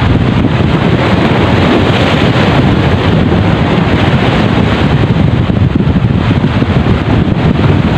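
Strong wind buffeting the microphone in a steady, loud rush, with sea waves washing over the rocks underneath.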